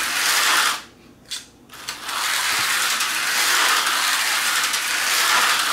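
Tyco 440-X2 HO slot car running laps on plastic track, its small electric motor and gears giving a steady high whirring chatter. The sound drops out briefly about a second in, then resumes.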